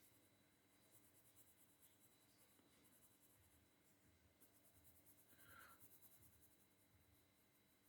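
Very faint rapid back-and-forth scratching of a pencil colouring in on paper. A short faint tone comes about five and a half seconds in.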